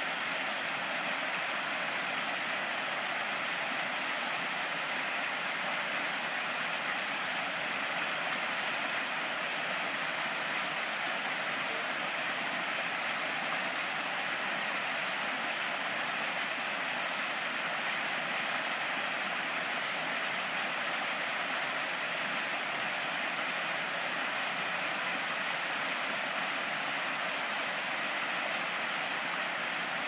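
Small tiered garden waterfall splashing steadily down rocks into a pool: an even, unbroken hiss of falling water, bright and high with little deep rumble.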